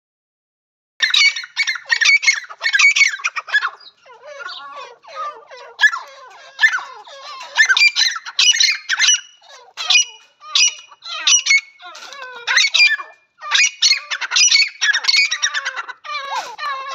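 Several female grey francolins (teetar) calling, starting about a second in: rapid clusters of short, high, squawking notes that overlap and repeat in bursts.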